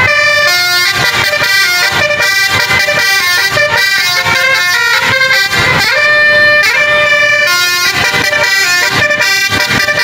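Bus basuri telolet horn, a bank of musical air horns, playing a fast tune of many short notes that change pitch in quick succession, loud.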